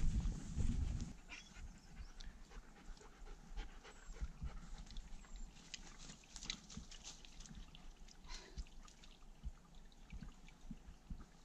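German Shepherd panting, with many small clicks and crackles scattered throughout. A louder low rumble fills the first second.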